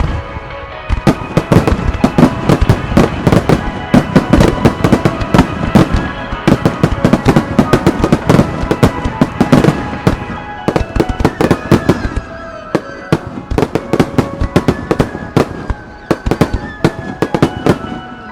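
Starmine fireworks barrage: aerial shells bursting in quick succession, many bangs a second, with a short lull near the middle. Music plays steadily beneath the explosions.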